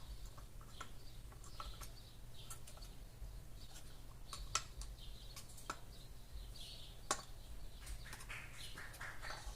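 Faint, scattered small clicks and light handling noises as cotton is worked by hand into an electric fan motor's bearing housing, over a low steady hum.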